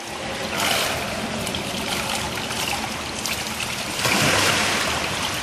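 Water splashing and sloshing around a kayak as the paddler capsizes and rolls back upright, with a louder surge of splashing about four seconds in.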